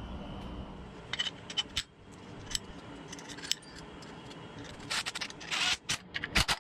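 Metal tools and engine parts being handled on a bench: scattered light clicks and clinks, with two brief scrapes about five seconds in.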